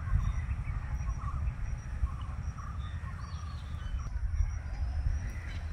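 Outdoor ambience: faint bird calls over a steady low rumble.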